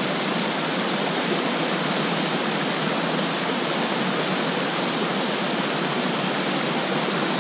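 Steady rush of a small waterfall pouring into a plunge pool on a steep mountain stream, with water running over rocks close by.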